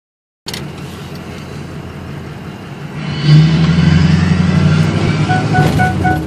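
Ford 6.0 L Power Stroke V8 turbodiesel running through a 3.5-inch straight-pipe exhaust, heard from inside the cab. It gets clearly louder about three seconds in as throttle is given, and stays up. Near the end a dashboard warning chime starts beeping quickly, about four beeps a second.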